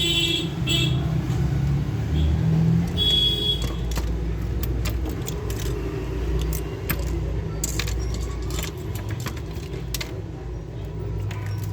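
Small irregular clicks and rattles of a matchstick toy gun's parts being handled and taken apart, over a steady low background rumble.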